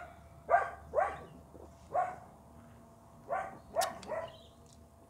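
A dog barking: about seven short barks in uneven groups, with a pause of about a second in the middle.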